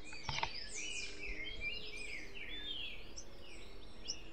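Tangará garganta negra (euphonias) calling: a quick, busy run of short, high, down-slurred chirps. These are the agitated calls of a male and female with their fledgling close by.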